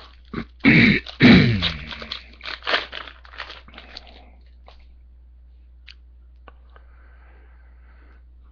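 Foil trading-card pack wrapper being torn open and crinkled, a dense run of loud crackles and rips lasting about four seconds. It is followed by a couple of faint ticks and a soft sliding hiss as the cards come out.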